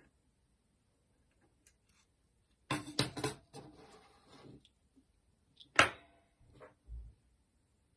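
Small clicks and clatter of phone parts and hand tools being handled on a work surface: a short burst of clattering about three seconds in, a single sharp click about six seconds in, and a dull low knock just after.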